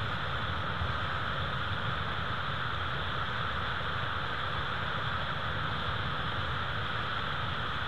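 Steady, even rushing noise with no distinct sounds standing out: the outdoor nest-cam microphone's background noise.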